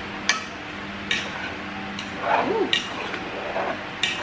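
Metal kitchenware clinking against a cooking pot: about four separate sharp clinks spread over a few seconds.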